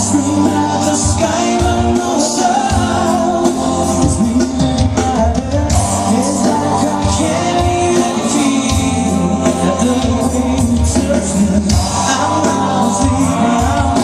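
Live pop-rock band playing with a male lead vocal, drums keeping a steady beat under the singing.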